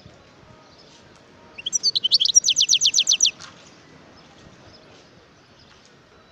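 European goldfinch singing one short, loud trill of rapid down-sweeping notes, about ten a second, starting about one and a half seconds in and lasting under two seconds.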